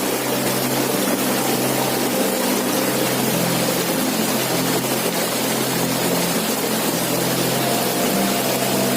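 Waterfall rushing steadily, with a low steady hum of held tones underneath.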